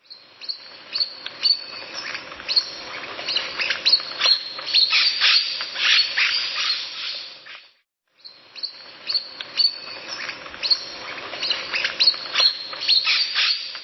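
Parrots chattering: dense, rapid high chirps and calls. The same stretch of calling plays twice, with a brief silence about eight seconds in.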